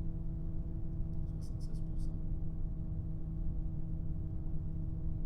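Noctua NF-R8 1800 80 mm fan running steadily right at the microphone: a steady hum of several tones over low air rush. A few faint clicks come between one and two seconds in.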